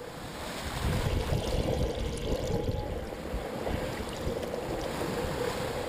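Water rushing along the hull of a Shark 24 sailing yacht under way, picked up by a camera at the waterline; a steady wash of water noise with a low rumble, a little louder from about a second in.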